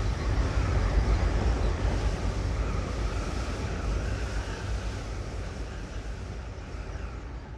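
Low, steady drone of Avro Lancaster bomber engines and rushing air, heard from on board the aircraft. It fades out slowly.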